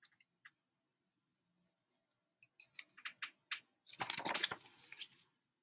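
Paper page of a hardcover picture book being handled and turned: a few soft taps and crinkles, then a louder papery rustle about four seconds in as the page turns over.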